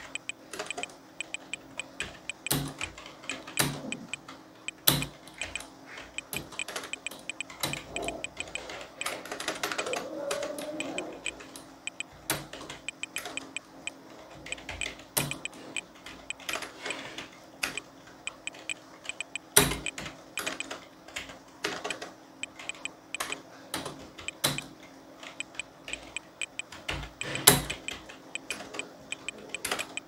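Typing on a Frontech KB0002 slim USB computer keyboard: an irregular run of key clicks, with a few louder clacks standing out.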